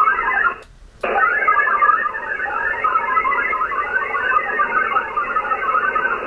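VARA HF digital modem signal from an HF transceiver on a Winlink connection: a dense warble of many short tones filling the voice band. It breaks off briefly a little after the start and stops at the end, as the stations take turns. The link is poor, running at only about 80 bits per second.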